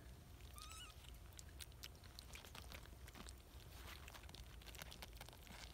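Very faint, scattered wet clicks and smacks of newborn kittens suckling at their mother, with one tiny wavering squeak about half a second in.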